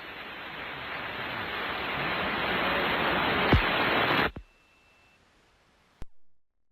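Radio static hiss with no treble, slowly getting louder, with a sharp click about three and a half seconds in. The hiss cuts off suddenly after a little over four seconds, and a single faint click follows near the end.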